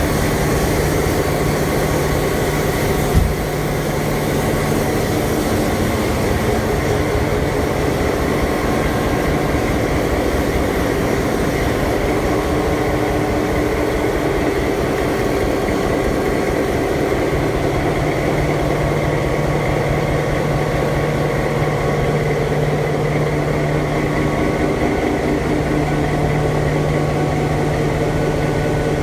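EMD 16-cylinder 567-C two-stroke diesel locomotive engine running steadily at an even speed, with one short knock about three seconds in.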